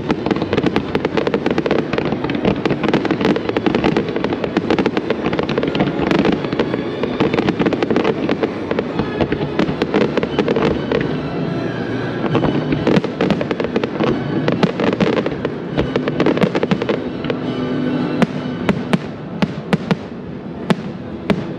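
Aerial fireworks shells bursting in a dense, continuous run of bangs and crackles, with a cluster of sharper reports near the end. Music plays underneath.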